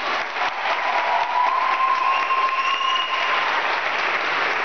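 Audience applauding with quick, dense clapping. A long high steady tone rises over the clapping for about two seconds, starting about a second in.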